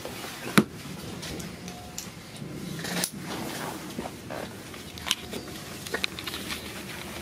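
A few sharp clicks and knocks, the loudest about half a second in and others near the middle and end, over the steady running noise inside a regional electric train carriage.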